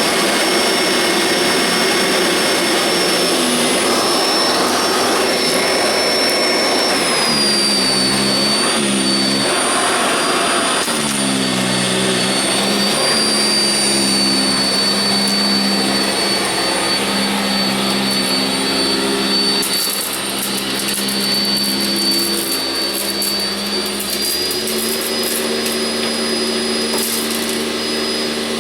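Sanitaire SC679j upright vacuum running on carpet: a steady motor whine over a hum whose pitch shifts a few times as it is pushed around. Short crackles come through about two-thirds of the way in and again near the end.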